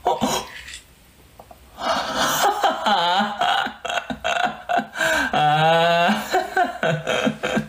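A man's wordless vocalising and laughing, with a long held vocal sound about five and a half seconds in.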